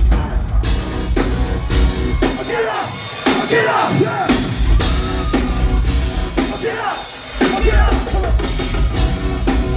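Live rock band playing in an acoustic set: a male singer over drum kit, bass and acoustic guitar, with drums keeping a steady beat.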